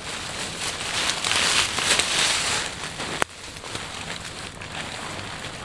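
Fabric of a sleeping bag and bedroll rustling and crinkling as they are handled and pulled apart, loudest in the first few seconds, with a single sharp click about three seconds in.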